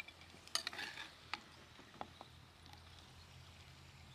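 Metal spoon scraping and tapping against a clay cazuela and clay plate as fried potato strips are scooped out: a few light clinks and scrapes, bunched together about half a second to a second in, then single ones.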